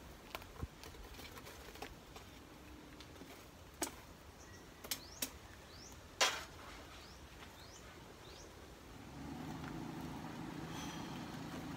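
Scattered light metallic clinks and knocks of tools being worked at a coal forge, with a few short rising bird chirps in between. About three quarters of the way in, a steady motor hum starts and carries on.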